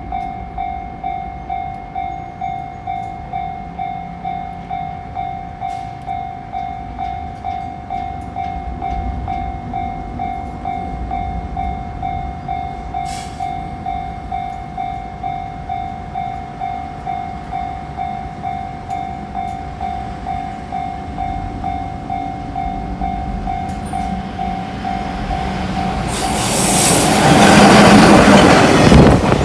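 Japanese railway level-crossing alarm ringing in steady, even pulses, about one and a half strikes a second. About 26 seconds in, a JR Yumesaki Line train arrives and passes close by, its loud rumble and wheel noise drowning out the bell.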